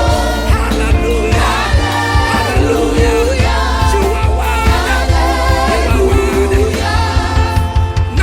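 Gospel praise-and-worship song: a choir and lead voices singing over a band with bass and a steady drum beat.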